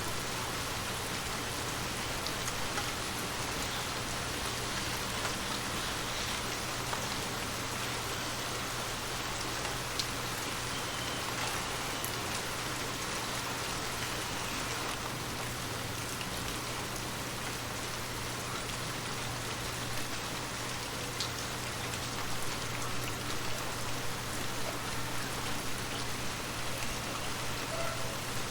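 Steady rain falling on a surface, an even patter with scattered distinct drops, over a faint steady low hum.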